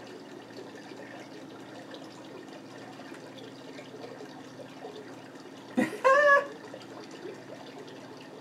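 A steady low hum, then about six seconds in a sudden, loud, high-pitched vocal squeal lasting under half a second.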